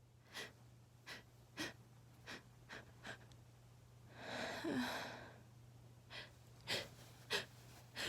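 A person sniffing again and again through an allergy-congested nose, about ten short sniffs, with a longer breathy sigh about four seconds in.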